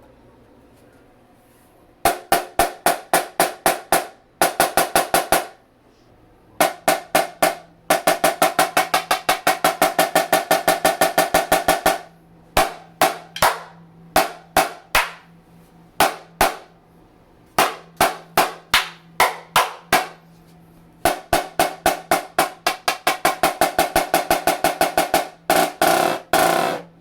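Marching snare drum played after about two seconds of quiet: short rhythmic figures of sharp, crisp strokes separated by brief pauses, with fast rolls in the middle and again near the end.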